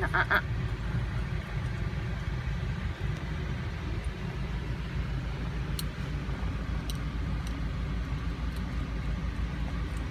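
Steady low rumble of a vehicle's running motor, with a brief high-pitched cry at the very start and a few faint clicks of a metal dental scaler working on a small dog's teeth.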